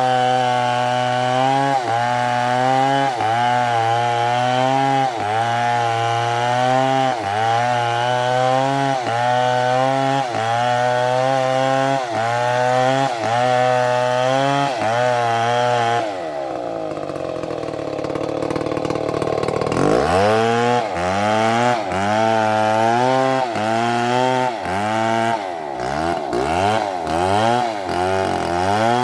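STIHL chainsaw running at high revs and cutting, its engine note dipping and recovering about once a second as the chain bites. About two thirds of the way in, the engine drops to a low speed for a few seconds, then revs back up, and the dips come faster near the end.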